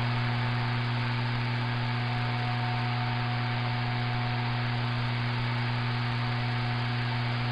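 CB radio receiving a keyed-up carrier with no voice: a steady electrical hum over radio static, unchanging throughout.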